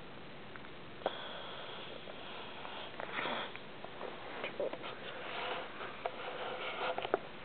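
A pet snoring: a run of irregular, hissy breaths with small clicks between them, starting about a second in.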